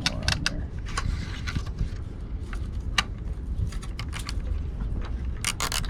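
Scattered clicks and light rattles of small hard plastic parts being handled and fitted, over a steady low rumble.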